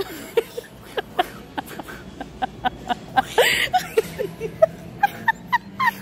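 A man making vocal sound effects with his mouth: a quick run of short, squeaky chirps and pops at changing pitches, about four or five a second, with one louder honk-like squawk about halfway through.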